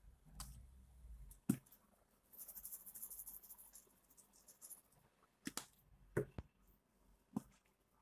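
Faint rattling of a plastic spice shaker being handled over a fish, then a few sharp clicks as its flip-top cap is snapped open.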